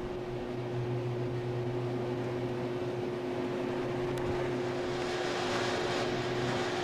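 Steady hum inside a moving aerial tramway cabin, the carriage running along its cables, with a held tone over it. A rushing noise swells about five seconds in.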